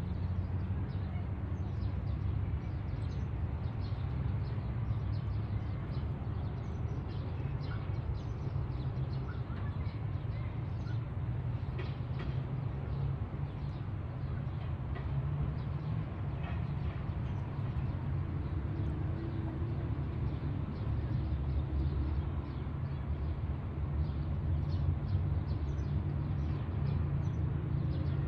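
Steady low outdoor background rumble with faint, scattered high ticks and chirps over it.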